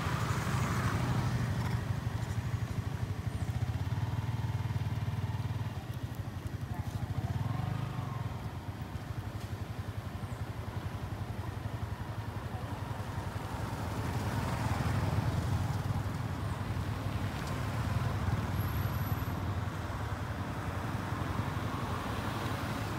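An engine running steadily, a low even rumble that stays on throughout.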